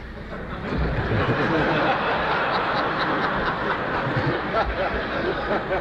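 Audience laughter from a room of listeners, swelling about a second in and carrying on steadily.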